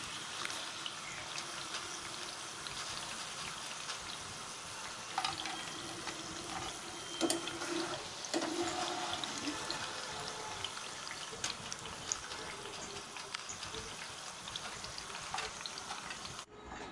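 Raw banana slices deep-frying in hot oil in a wok, a steady crackling sizzle, with a few sharp clinks of a metal wire skimmer against the pan.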